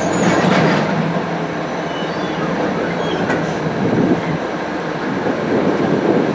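KiHa 350 diesel railcar standing still with its diesel engine idling, heard from inside the cab as a steady running noise.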